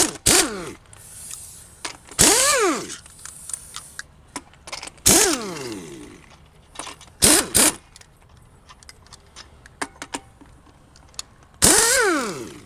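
Impact wrench with a 19 mm socket working a Jeep's lug nuts loose. It fires in about five short bursts, each motor whine rising and falling in pitch, with clicks and rattles between them.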